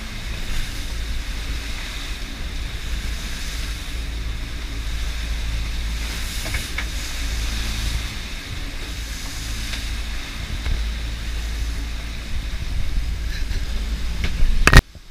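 Wind buffeting the microphone and water rushing along the hull of a sailing yacht under way in rough sea, as a steady low rumble with hiss. Near the end there is a sudden loud burst, and then the sound cuts off.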